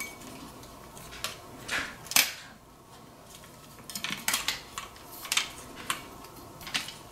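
Tripod legs of a light stand being pulled apart and unfolded by hand: irregular light clicks and clinks as the tubes and leg joints knock together, several in quick succession past the middle.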